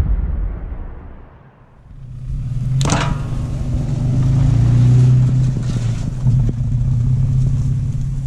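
A deep rumble fades away over the first second and a half. Then a Toyota pickup truck's engine starts to be heard running, growing louder to about five seconds in and then easing slightly, with a single sharp click about three seconds in.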